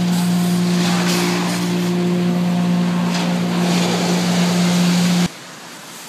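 Steady drone of sawmill machinery running, one low constant tone over a rushing noise. It cuts off suddenly about five seconds in.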